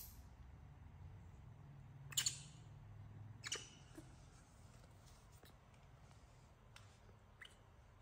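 A baby monkey gives two faint, short high-pitched squeaks, about two seconds in and again about three and a half seconds in, over quiet room tone.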